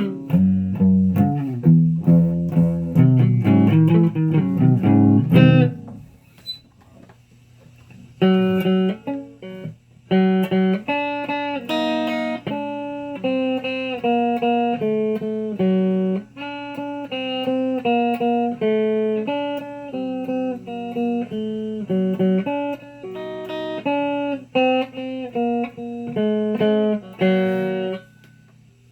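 Electric guitar played solo: a fast run of low picked notes, a break of about two seconds, then a slower single-note melody higher up the neck. A faint steady hum sits under the playing throughout.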